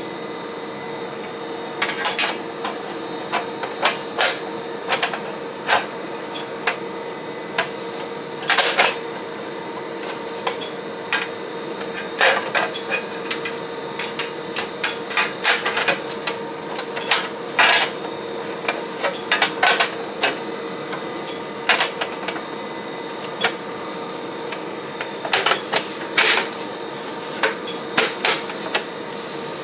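Irregular clicks, taps and clatter of hands fitting the top cover back onto a rackmount UPS battery pack, over a steady hum.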